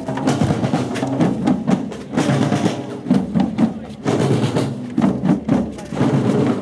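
Procession drum band playing, many sharp drum strikes over a mix of other music and crowd voices.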